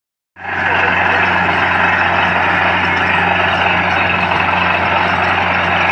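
Borewell drilling rig running: a steady heavy engine hum under a loud rushing hiss, starting abruptly a fraction of a second in. Its sound is listened to for a sign of whether the bore will strike water.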